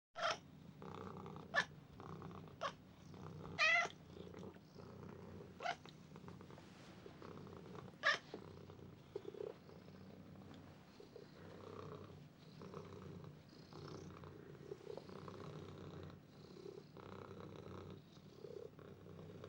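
Domestic cat purring steadily, with about six short, sharp sounds in the first eight seconds, the one nearly four seconds in a brief pitched call.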